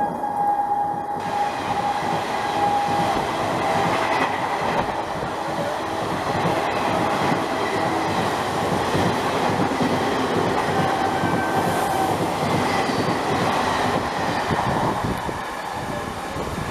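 Passenger coaches of a Duronto Express rushing past a platform at speed, wheels clattering over the rail joints in a steady roar, with a horn note dying away in the first few seconds.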